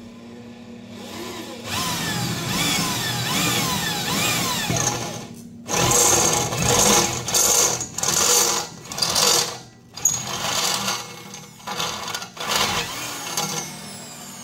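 Corded electric drill boring into a steel exhaust pipe to make the mounting hole for an oxygen sensor. The motor's pitch rises and falls over and over at first. From about halfway it runs in short, loud spurts as the trigger is pulsed, and it winds down with a falling whine near the end.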